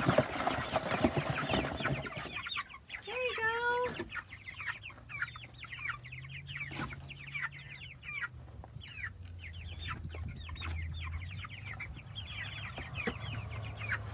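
A flock of three-week-old Cornish Cross chicks peeping continuously in quick, high chirps, with one longer, lower call about three seconds in.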